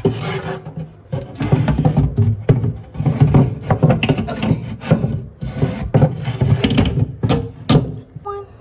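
Background music, with a few sharp knocks from a shelf being handled inside a wooden nightstand, the two loudest near the end.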